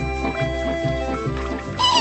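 Cartoon soundtrack music: a steady pulsing bass under short held melody notes. Near the end a loud, high, wavering cry with a strong wobble begins.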